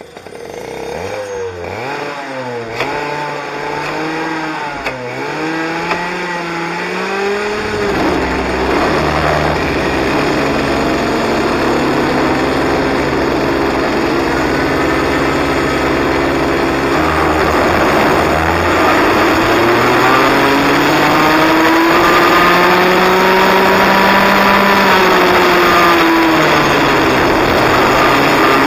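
Cadet kart's small single-cylinder engine starting up and revving in quick rises and falls as the kart pulls away, getting louder over the first several seconds. It then runs hard out on the track, its pitch holding steady for stretches and rising and falling with acceleration and braking.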